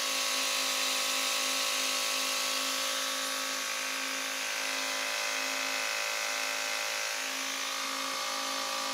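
Homemade 12 V DC air compressor pump running steadily on 12 volts: an even electric-motor hum with a high hiss over it.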